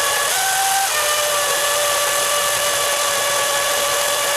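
DeWalt DCM575 FlexVolt cordless chainsaw running with a steady electric whine as it cuts through a firewood log. About half a second in the pitch briefly steps up, then settles back to an even whine.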